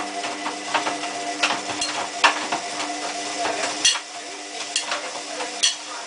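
Hotpoint Aquarius+ WMF740 front-loading washing machine in the main wash of a cottons 30 cycle: the drum turns the wet load, with many irregular knocks and clicks over a splashing hiss. The motor's steady hum stops about four seconds in.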